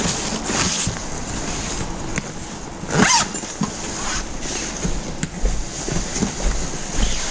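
Zipper on a yellow insulated delivery backpack being pulled shut, with the bag's fabric rustling as it is handled; one long zip about three seconds in is the loudest sound.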